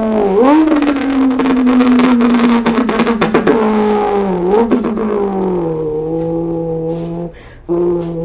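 A person imitating a car engine with their mouth: a buzzing engine-like tone that slowly sinks in pitch, with a couple of quick dips and rebounds like gear changes, breaking off briefly near the end.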